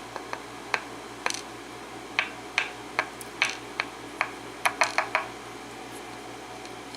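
Parts of a disassembled Yale pin-tumbler lock (pins, plug and cylinder) being handled, giving an irregular run of small sharp clicks and taps that stops about five seconds in.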